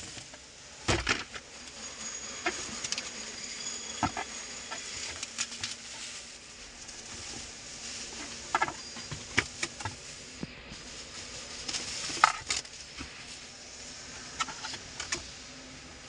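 Bubble wrap and a cardboard box crinkling and rustling as a new car heater control panel is unwrapped and handled, with scattered sharp crackles and plastic clicks, the loudest about a second in and again about twelve seconds in.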